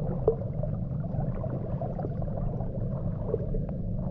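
Water moving close by: a steady low rush with scattered small clicks and crackles, and one sharper tick about a third of a second in.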